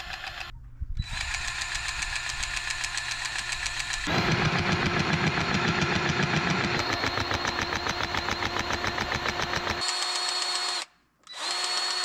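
Cordless grease gun running in long bursts with a fast, even pumping pulse and a thin whine as it forces grease into a skid steer's loader-arm pivot fittings. It stops near the end, then runs again briefly.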